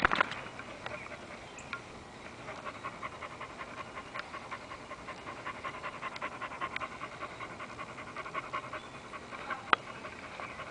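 A dog panting hard and fast with her tongue hanging out, winded from digging in dirt. A couple of brief knocks sound, one right at the start and one near the end.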